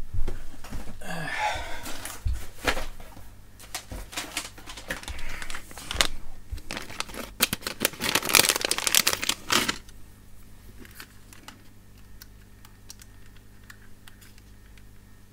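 Clear plastic zip bag of plastic pry tools crinkling and rustling as it is handled and opened, with clicks and clatter from the tools inside. The crinkling is loudest and densest about eight to ten seconds in, then gives way to quieter, scattered clicks near the end.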